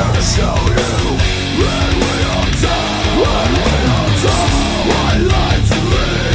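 Loud heavy-rock music with electric guitar and drum hits.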